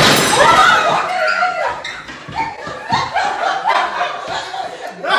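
A group of people shrieking and laughing in a scramble to grab spoons in a card game, with a clatter on the table right at the start. Excited laughter runs on after it.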